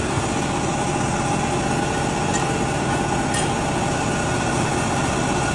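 Laser welding machine running steadily, a continuous hum and hiss, with two faint clicks in the middle.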